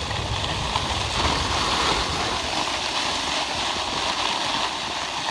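Skis sliding over packed snow, a steady hiss, with wind buffeting the phone's microphone in a low, uneven rumble.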